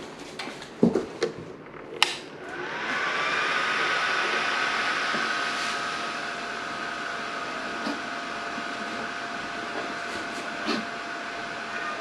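A few handling knocks, then a click as a compressor nebulizer is switched on about two seconds in. Its motor spins up over a second or so and settles into a steady whine with an airy hiss.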